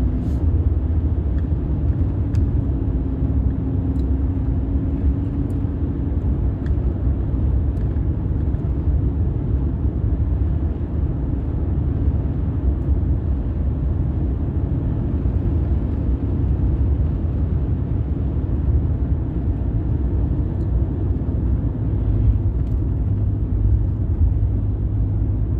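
Steady low rumble of a car's engine and tyres on the road, heard from inside the cabin while driving. A faint low hum rides on top and fades out about six seconds in.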